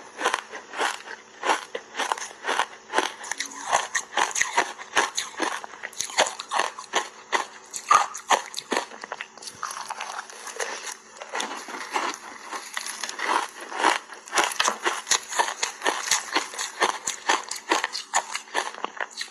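Refrozen ice bars coated in matcha powder being bitten and chewed, making close, crisp crackling crunches several times a second with no real pause.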